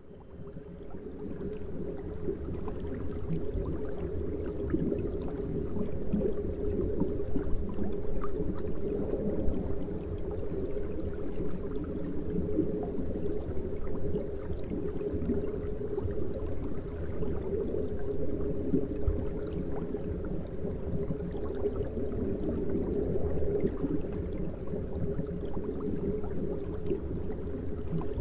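Aquarium sponge filter bubbling: a steady stream of air bubbles rising and breaking through the water. It fades in over the first couple of seconds.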